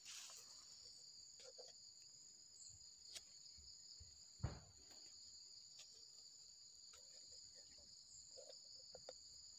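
Faint, steady high-pitched buzz of insects in the surrounding vegetation, with a few light clicks and one short thump about four and a half seconds in.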